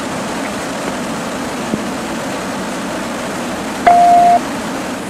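Steady rushing noise of a fire hose stream spraying water into a burning building, with fire apparatus running. About four seconds in comes a single short radio beep, lasting about half a second.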